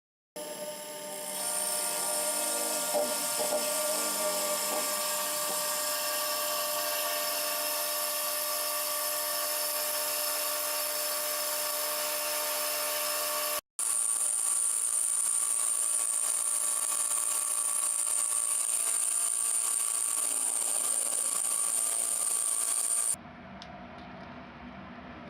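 Sherline milling machine running with its cutter taking a finishing cut: a steady machine whine with a high whistle over it. It breaks off for a moment about halfway through and resumes slightly louder, then drops to a quieter, lower hum near the end.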